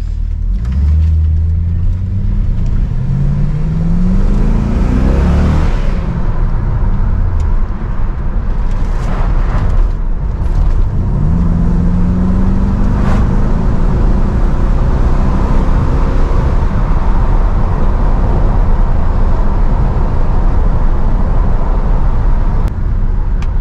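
Car engine accelerating, its pitch rising for a few seconds, dropping at a gear change, then rising again about eleven seconds in before settling into steady cruising with road noise.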